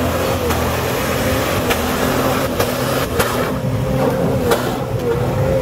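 Jeep Wrangler TJ engine running steadily under load as the Jeep drives through deep mud and water, with a few sharp clicks over it.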